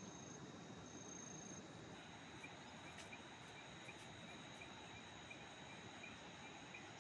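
Faint insect chorus: a steady high-pitched trill, joined a couple of seconds in by a run of short chirps about two a second, over a low steady hiss.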